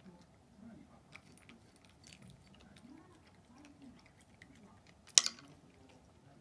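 A cat crunching and chewing dry kibble from a ceramic bowl, with many small faint clicks. About five seconds in comes one sharp, much louder click.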